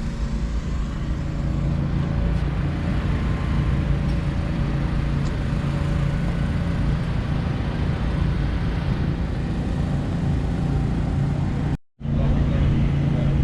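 Steady car engine noise with a low hum, broken by a brief dropout near the end.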